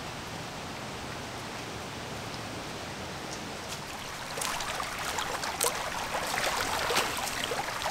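Steady rushing of running water, joined about halfway through by dense, irregular crackling and pattering.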